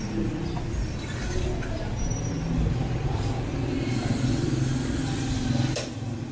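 Street traffic: a motor vehicle's engine running close by with a steady low hum, and a sharp click about six seconds in.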